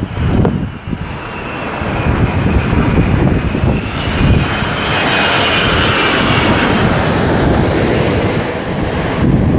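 Airbus A380's four jet engines passing low overhead on final approach: the jet noise builds steadily, is loudest with a high whine in the second half, and falls away near the end. Wind buffets the microphone underneath.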